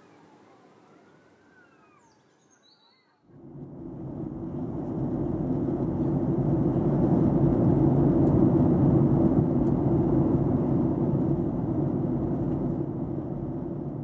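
Faint bird chirps, then about three seconds in a loud steady rush of jet airliner engine noise cuts in, swells and slowly fades near the end.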